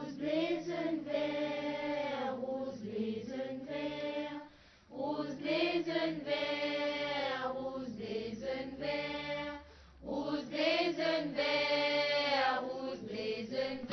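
Voices singing a slow, chant-like melody in three long phrases, with short breaks between them.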